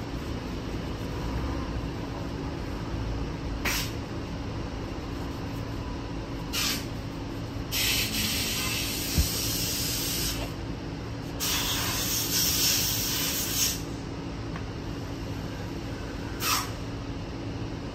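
Pressurised spray hissing in bursts while the bare oil-pan flange under the engine is cleaned: three short blasts and two longer ones of two to three seconds each. A steady low hum runs underneath.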